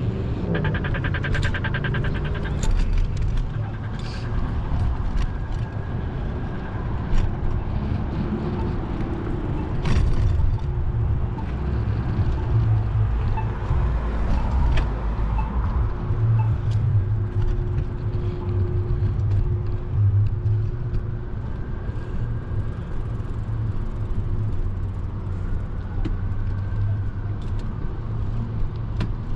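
Road traffic: cars passing with a steady low rumble, and scattered sharp clicks and knocks. A pitched drone stops about a second and a half in.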